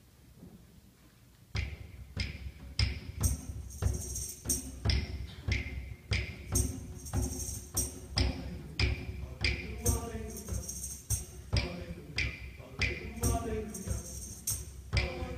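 Hand drum and tambourine begin a steady, rhythmic beat about a second and a half in, the drum giving low thuds under the tambourine's jingle. Choir voices come in over the percussion from about ten seconds in.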